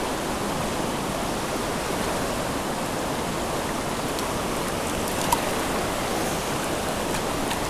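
A small mountain creek rushing steadily over rocks, with a single short click about five seconds in.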